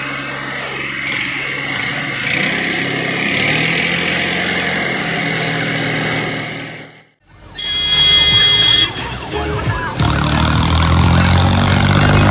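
Diesel tractor engines running hard under load as two tractors, one a New Holland 3630 'Mustang', pull against each other in a chained tug of war, growing louder about two seconds in. About seven seconds in the sound cuts out for a moment and comes back louder with tractor engine sound.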